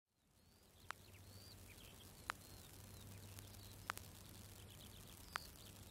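Faint birds chirping over a steady low hum, fading in at the start, with four sharp clicks about every second and a half.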